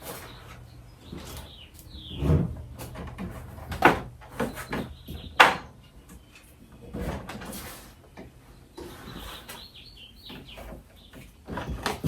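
Handling noise from the parts of a Halloween animatronic clown prop being fitted together: irregular knocks and clicks, with a couple of short squeaks.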